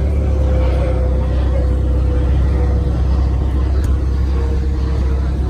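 Car engine running steadily at idle, a deep, even rumble with a faint held tone above it.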